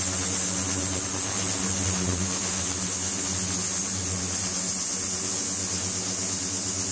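Ultrasonic cleaning tank running: a steady low hum with a strong high-pitched hiss over it.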